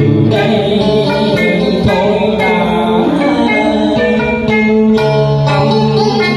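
A man sings a Vietnamese cải lương (đờn ca tài tử) song through a microphone and PA, accompanied by an electric guitar and a plucked Vietnamese lute, with wavering, ornamented vocal lines over the plucked notes.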